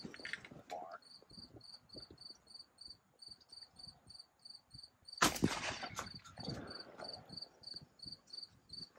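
A single shotgun blast about five seconds in, fired at a flying dove, trailing off briefly. Crickets chirp steadily throughout, with rapid, evenly spaced high chirps.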